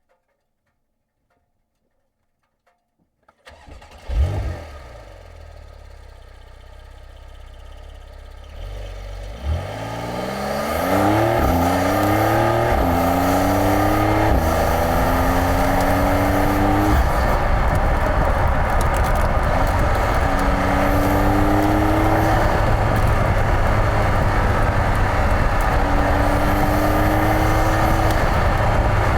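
Car engine starting about four seconds in, idling briefly, then revving and pulling away loud and steady, its pitch climbing, dropping back and climbing again several times as it accelerates through the gears.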